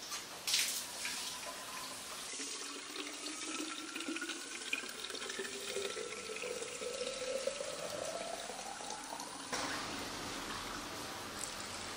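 Water running from a tap into a plastic Nalgene bottle, with a short knock about half a second in. The pitch of the filling bottle rises steadily as the water level climbs, then breaks off abruptly near the end.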